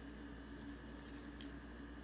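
A steady low hum over faint hiss, with a few soft ticks a little over a second in.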